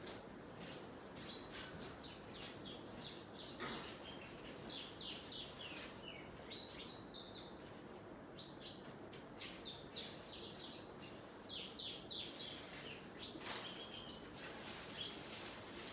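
Small birds chirping: a steady stream of short, quick, falling-pitch chirps, several a second at times.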